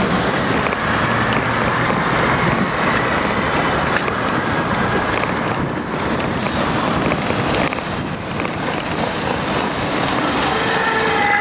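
Wind rushing over a bicycle-mounted camera's microphone, mixed with street traffic, with a few scattered knocks. Near the end a steady engine note comes in.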